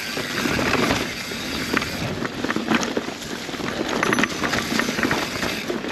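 Mountain bike riding down a rooty dirt trail: tyres rolling over dirt and roots, with frequent short rattling clicks and knocks from the bike.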